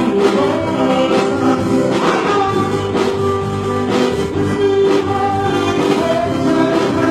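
Live band playing a rock song, a man singing lead over electric guitars and keyboard.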